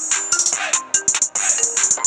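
Electronic ringtone tune playing: a fast looping beat of sharp percussive ticks under short, stepping synth notes.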